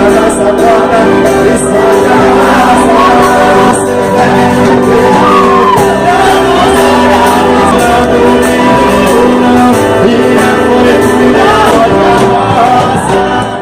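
A band playing loud music: a singer over sustained held chords and a steady beat, with shouts.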